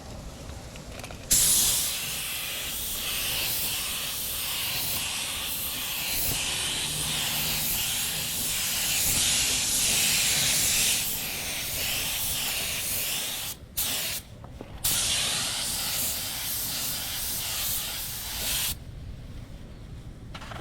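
Paint spray gun hissing as it sprays a coat onto a car bumper: it starts suddenly about a second in, cuts out twice briefly in the middle, and stops near the end.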